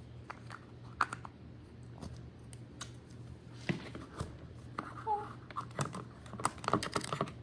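Irregular light clicks and taps of small objects being handled, coming thicker in the second half, over a faint steady low hum.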